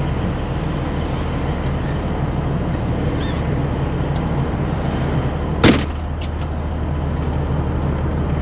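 Peterbilt 362 cabover's diesel engine idling steadily, heard from inside the cab, with one sharp knock a little over five seconds in.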